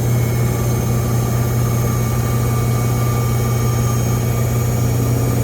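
GE GFW850SPNRS front-load washer in its spin cycle, running steadily with a loud low drone and high-pitched squealing tones above it. Service technicians say this sound is normal for this model.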